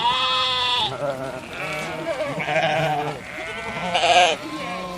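Sheep bleating: about four wavering bleats one after another, the loudest about four seconds in.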